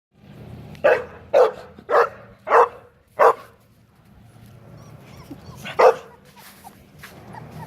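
A dog barking: five quick barks about a second in, then one more near the end. Faint short high squeaks come between the barks.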